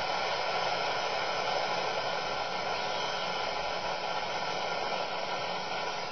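Static hissing from a budget Coby shortwave radio's speaker as it is tuned for a shortwave broadcast and finds no station, only a steady even hiss.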